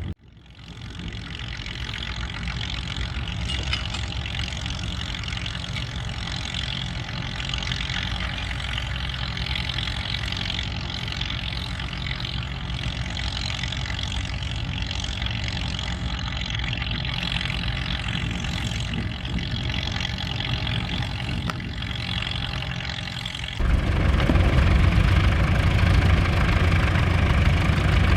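Vintage farm tractor engine running steadily under ploughing work. About 23 seconds in, the sound abruptly becomes much louder and closer.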